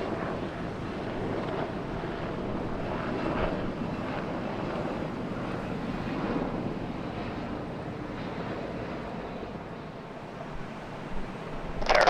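Airliner jet engine noise heard at a distance across the airfield, a steady rumble that swells and fades slightly, with wind buffeting the microphone.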